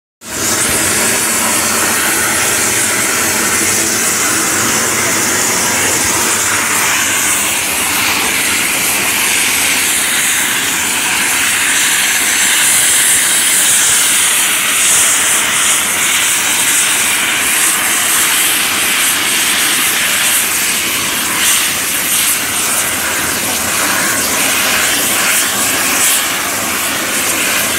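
Twin-turbine Mil Mi-8-family transport helicopter running on the ground with its main rotor turning, as it starts up for flight. The turbines and rotor make a loud, steady hiss and whine that does not change.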